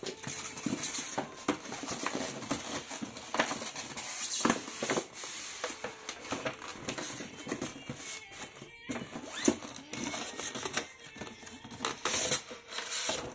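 Cardboard toy boxes and a styrofoam packing insert being handled and pulled open: irregular rustling and scraping with many short clicks and knocks.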